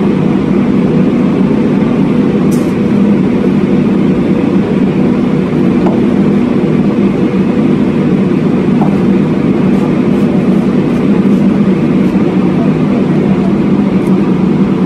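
A hydraulic piling rig's engine running at a steady, unchanging drone, with a few faint light ticks over it.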